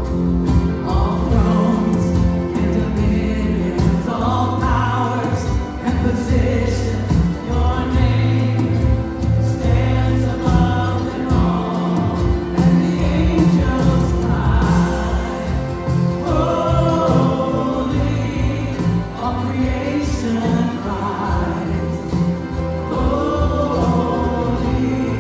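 Gospel choir singing with instrumental accompaniment and a steady bass line.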